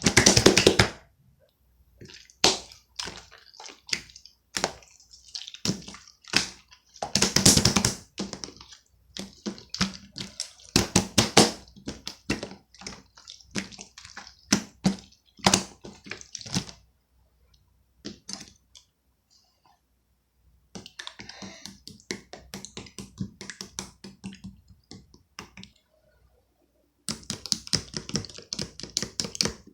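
Opaque slime being squished and pressed by hand, giving wet crackling and popping clicks in bursts, with short pauses between them.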